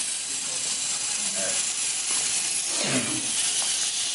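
A LEGO Mindstorms NXT robot's geared motors whirring steadily as it drives across the floor, with a steady hiss.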